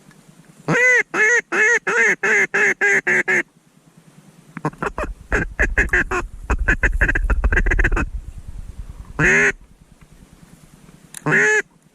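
Duck quacking, loud and close: a run of about nine quacks, then a fast chattering run of short notes, then two single quacks.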